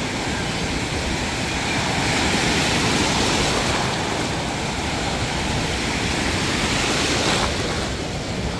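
Ocean surf: waves breaking and washing in a steady rush that swells a couple of seconds in and eases near the end.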